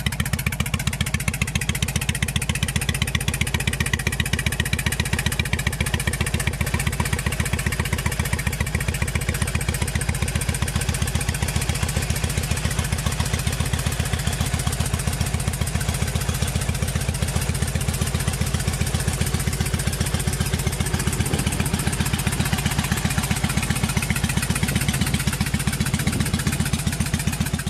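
2003 Yamaha XVS1100 V Star's air-cooled V-twin engine idling steadily, with an even pulsing exhaust beat.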